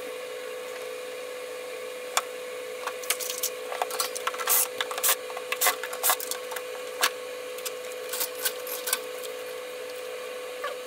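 Irregular clicks, taps and scraping as an electric fan's motor housing is taken apart by hand, over a steady faint tone.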